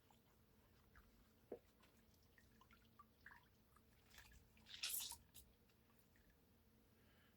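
Faint wet squishes and drips as newspaper strips are soaked in drywall compound thinned with water, with a brief rustle of paper about five seconds in.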